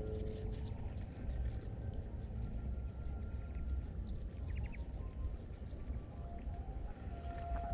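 Insects droning outdoors: a steady high-pitched whine that holds without a break, over a low rumble.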